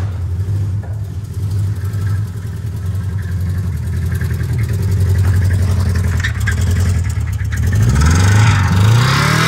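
Subaru Legacy's boxer engine running with a knock, starved of lubrication because its crankcase holds thick water instead of engine oil. Near the end the revs climb.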